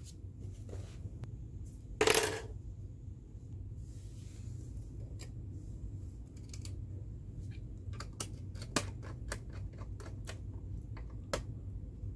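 Small irregular metallic clicks and taps of a screwdriver and wire being worked at the terminals of an industrial contactor, with a brief scrape about two seconds in, over a steady low hum.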